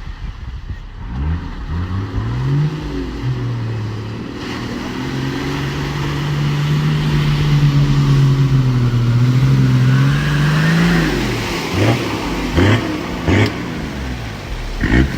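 Toyota Land Cruiser 80 Series engine pulling under load: it rises in pitch about a second in, holds steady for several seconds, then drops away, followed by a few quick short revs near the end.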